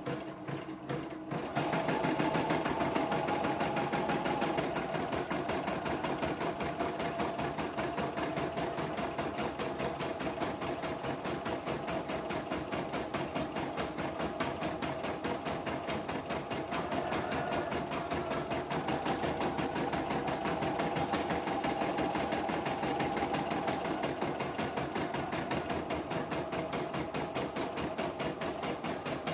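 CNY E960 computerised embroidery machine stitching a design: a rapid, even needle clatter over the motor's hum. It gets louder about a second and a half in and then runs on steadily.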